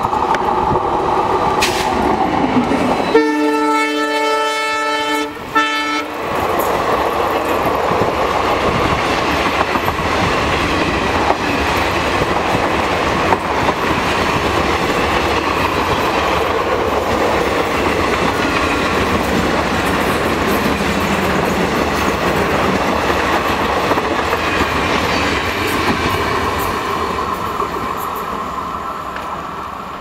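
WDP4 diesel-electric locomotive blowing its multi-tone air horn, ending a first call about two seconds in and then a long, loud blast from about three to six seconds in. The locomotive then passes under throttle and its passenger coaches roll by with a steady rumble and clickety-clack of wheels over rail joints, fading near the end as the train draws away.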